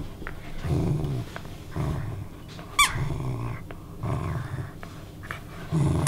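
Poodle–Bedlington terrier cross dogs growling in short bouts while tugging at a plush toy, play growling. About three seconds in, the toy's squeaker gives one short, sharp squeak.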